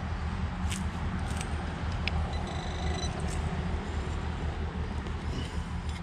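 A hand digger working soil in a small dig hole, with a few faint scrapes and clicks, over a steady low rumble of wind on the microphone.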